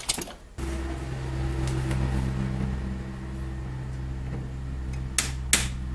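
A steady low mechanical hum switches on about half a second in and holds at an even pitch, with two sharp clicks near the end.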